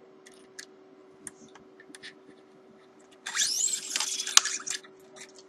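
Restringing an electric guitar: scattered light clicks of handling, then about three seconds in a second and a half of bright scraping as a steel string is pulled through, with a rising squeal, ending in a sharp click.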